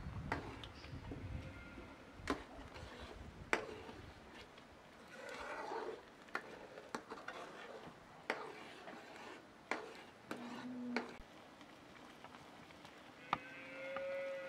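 Scattered sharp clinks and taps of cooking utensils against metal cookware. A short low animal call comes a little past ten seconds, and a longer farm-animal bleat near the end.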